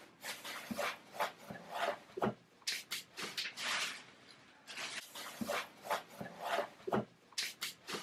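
Wood-shaving bedding rustling and scratching in irregular bursts as it is spread by hand in a plastic hamster cage tub, with a few light knocks against the plastic.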